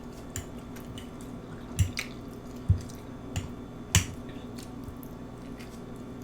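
Close-miked mouth sounds of someone eating: scattered wet smacks and clicks of chewing, about eight in all, the loudest two near the middle.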